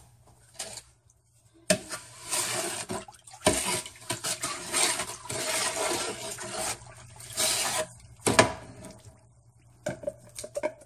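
Something being poured into a large pot of sauce, a long rushing hiss, with a few knocks of a container or utensil against the pot.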